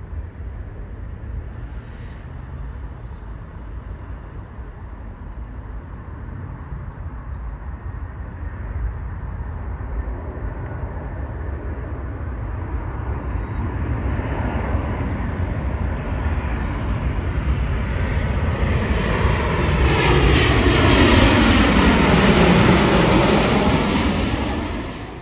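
Alaska Airlines Boeing 737 jetliner on landing approach, its twin turbofan engines growing steadily louder as it comes in low overhead. Near the loudest point, sweeping tones fall in pitch as it passes, then the sound cuts off suddenly at the end.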